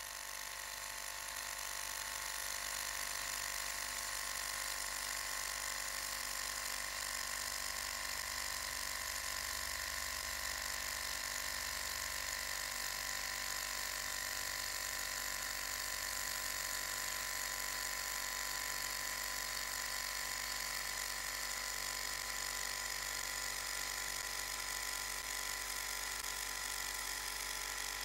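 Model walking-beam alpha Stirling engine running steadily, a continuous mechanical running sound that swells up over the first few seconds and then holds level.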